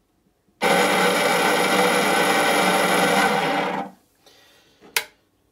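Bait boat drive motor with a worn main bearing, run for about three seconds: a loud, steady pitched drone that starts suddenly and stops, echoing inside the empty plastic hull. The noise comes from the worn bearing. A single click follows near the end.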